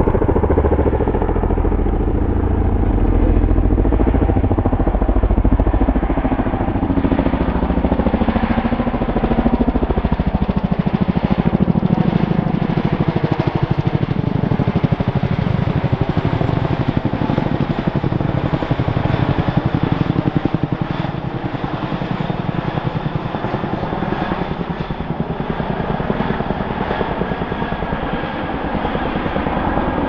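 Two Boeing CH-47F Chinook twin-turbine tandem-rotor helicopters flying over, their rotor blades beating rapidly over the turbine whine. The pitch slides as they pass, and the sound eases somewhat after about twenty seconds.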